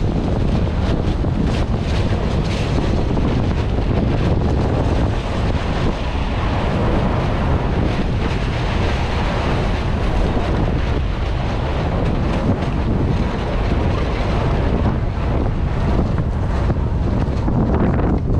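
Strong wind buffeting the microphone on a moving ferry's deck, a steady low rumble with gusty hiss on top.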